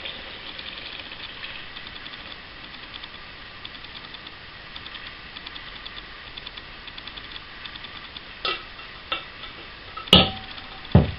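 Lemon water poured through a sieve onto sliced orange peel in a pan, a light crackly trickle. This is followed by a few knocks of metal pans and the sieve being handled, the loudest about ten seconds in with a short ring and a dull clunk just after.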